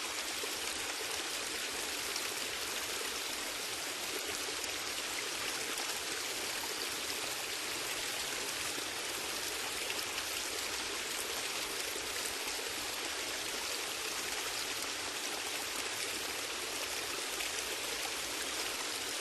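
Steady, gentle rain falling, an even hiss of many small drops with no let-up.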